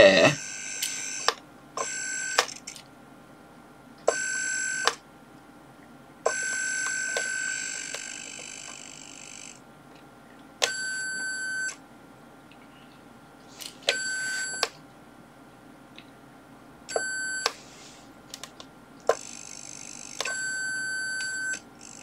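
Electronic buzzer in a light-alarm circuit on a Maxitronix electronics kit, sounding one steady high tone in about eight on-off bursts of uneven length, with small clicks between them. It starts and stops instead of staying on, because the alarm's latch is not holding.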